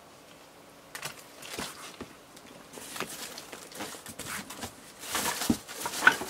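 Hand rummaging through a cardboard box of plastic action figures: irregular rustling and light knocks, starting about a second in and busiest toward the end.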